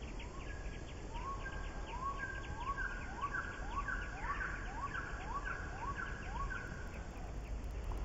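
A bird singing one phrase over and over, about two a second: a whistled note sliding upward into a short held note. It stops about seven seconds in, over a steady low outdoor rumble.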